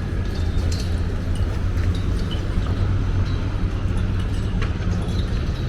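Steady low mechanical rumble with a faint hum and scattered light ticks.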